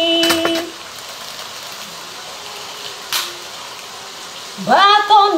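A woman's voice singing unaccompanied holds a note that breaks off just under a second in. A pause with a faint steady hiss and a single click about three seconds in follows, and near the end she starts singing again.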